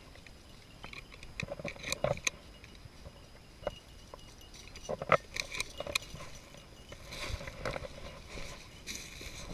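Dry leaf litter and twigs rustling and crackling in short, scattered cracks, then turning into a steadier run of footsteps through the dry leaves about seven seconds in.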